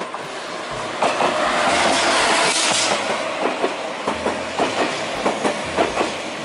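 Thalys high-speed train passing close along a station platform. Its rushing wheel and rail noise swells about a second in as the front car draws level. From about halfway on comes a steady clickety-clack of wheels over rail joints as the carriages go by.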